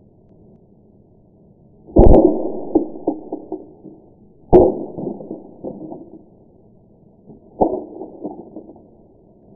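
Plastic snap mouse trap snapping and clattering on paving: three sharp knocks, each followed by a run of smaller rattling knocks as the trap tumbles and settles. The sound is muffled.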